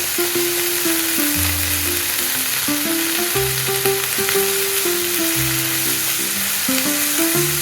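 Food sizzling in hot oil in a pan, a steady hiss, under background music with a melody and bass line.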